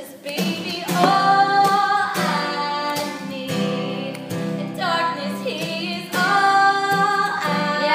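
A woman singing held notes with vibrato over a strummed and plucked acoustic guitar.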